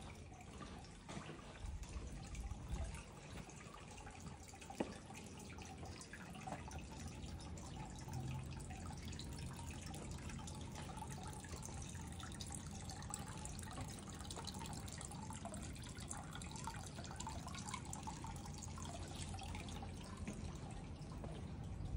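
Water trickling and dripping steadily, with fine drips over a continuous running-water hiss; a single sharp click about five seconds in.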